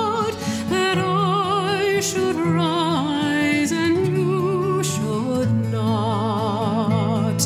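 Background music: a melody with strong vibrato moving in steps over sustained low notes.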